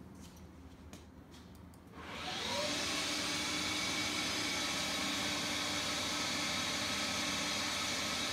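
Hercus PC200 CNC lathe's spindle starting up about two seconds in, rising in pitch briefly as it spins up to speed, then running steadily.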